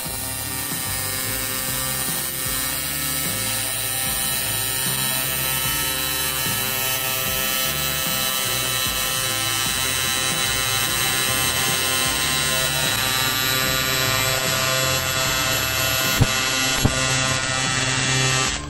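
TIG welding arc on aluminum, a steady AC buzz with hiss, running without a break until it cuts off suddenly at the end. Two sharp clicks sound about sixteen seconds in.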